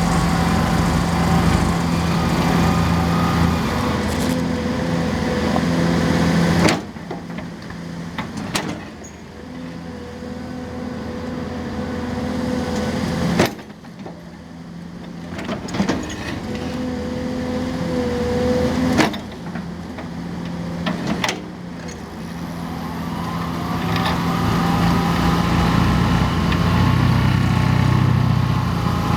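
Hydraulic excavator's diesel engine and hydraulics running hard while working a vibro ripper attachment, with a steady whine over the engine note. The noise falls off abruptly several times and builds back up each time.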